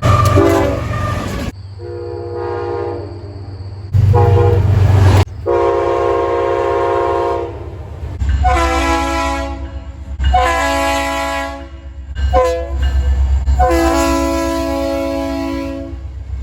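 Train air horns sounding a series of chord blasts, some short and some a couple of seconds long, with abrupt cuts between separate recordings and the low rumble of the passing train underneath.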